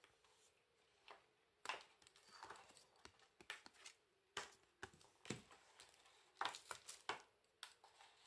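Quiet handling of paper and card: a string of light taps and short rustles, busiest about six to seven seconds in.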